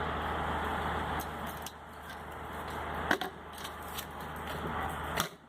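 Steady workshop hum with a few sharp metallic clicks and knocks of clutch parts being handled. The loudest knock comes about three seconds in, and the hum drops away sharply near the end.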